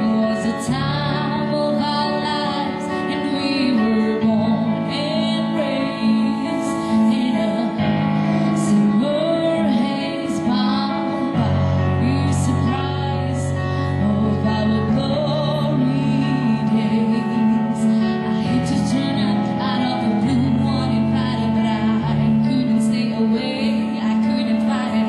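A woman singing a slow ballad live into a microphone, amplified through a PA, over sustained electronic keyboard chords that change every few seconds.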